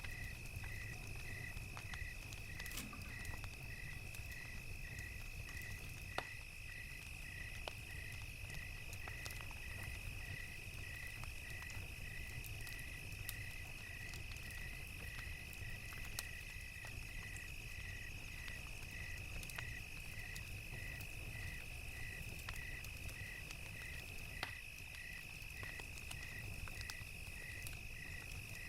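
Crickets chirping at an even pace, about one and a half chirps a second, over a steady high insect trill. A crackling fire adds scattered pops, the sharpest about three seconds in, and a low rumble runs underneath.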